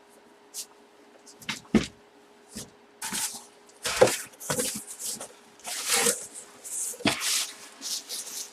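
Handling noises from trading cards and their packaging: a run of short rustles and scrapes with a few light knocks, starting about a second in.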